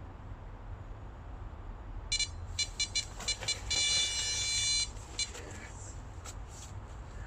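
Electronic carp bite alarm sounding: separate beeps from about two seconds in that quicken into a continuous tone for about a second, then a few more beeps. This is a run, a fish taking line.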